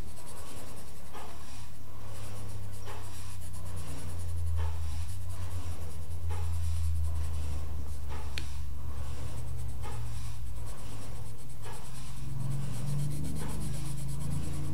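Black colouring pencil scratching across paper in shading strokes, over a steady low hum, with one sharp click about eight seconds in.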